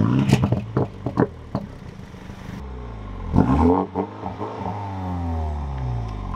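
BMW M135i xDrive's turbocharged 2.0-litre four-cylinder engine, heard at the twin exhaust tips just after starting. It runs with some clattering in the first second or so, then is blipped about three seconds in, the revs falling slowly back to idle.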